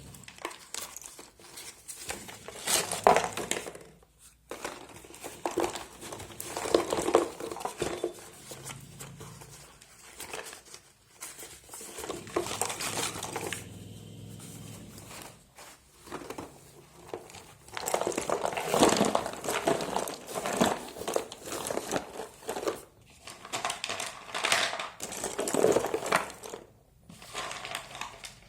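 Crinkling and rustling of wrapping being handled around a box of slate pencils, in irregular bursts with short pauses.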